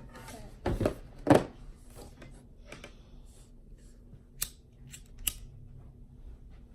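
Hobby knife working at a fishing rod's tip guide, cutting and scraping away the old epoxy: a few sharp separate clicks and short scrapes, the loudest about a second and a half in.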